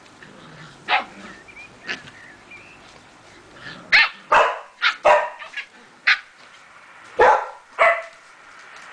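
Samoyed puppies yapping and barking as they play-fight: two single sharp barks, then a quick run of about six in the middle and two more near the end.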